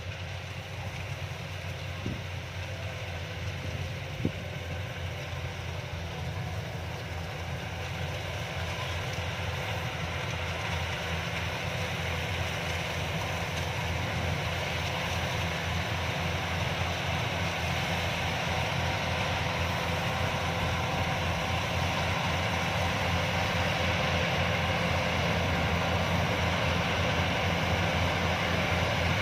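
Yanmar YH-850 combine harvester running steadily, its engine and machinery growing gradually louder, with two sharp clicks about two and four seconds in.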